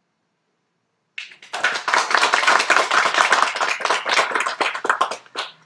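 A small audience applauding: dense hand clapping that starts about a second in and dies away near the end.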